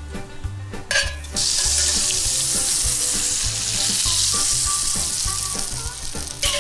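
Butter sizzling and foaming in a hot cast-iron skillet. The sizzle starts suddenly about a second in, as the butter drops into the pan, and holds steady after that.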